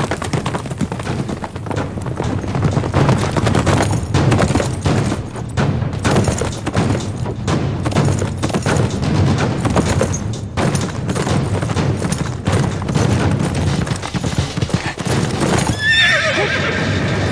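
A horse galloping: rapid, steady hoofbeats drumming on turf. A horse whinnies near the end.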